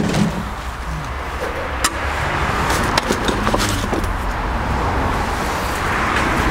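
A few sharp metallic clinks of hand tools working a ball joint separator on a suspension ball joint, over a steady background rumble.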